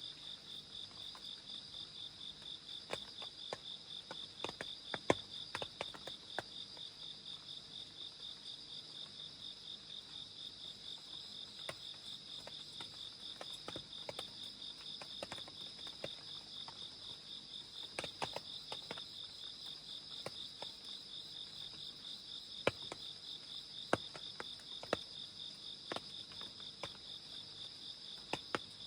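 Crickets and other night insects chirping in a continuous, rapidly pulsing high chorus, with scattered sharp drips of rain ticking throughout, a few louder ones standing out.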